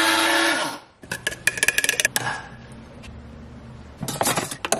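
Press-and-hold electric coffee grinder whining steadily as it grinds beans, then cutting off about a second in. A quick run of metallic clinks and knocks follows, and more clanks come near the end as the portafilter is locked into the espresso machine.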